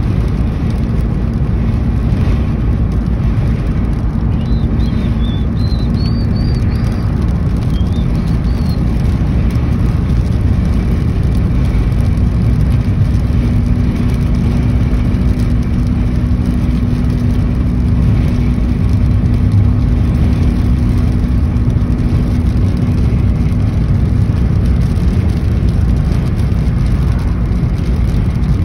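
Steady road and engine noise of a car driving at highway speed, heard from inside the cabin, with a low steady hum under it. A few faint high chirps come and go about four to nine seconds in.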